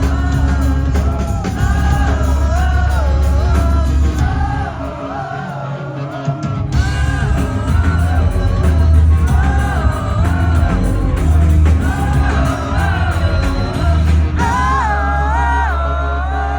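Live rock band playing loud, with sung vocal melodies over a heavy bass; the bass drops out for about two seconds midway before the full band comes back in.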